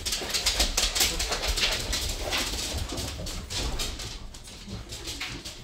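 Household pets making loud, continual noise, loudest at first and easing off near the end.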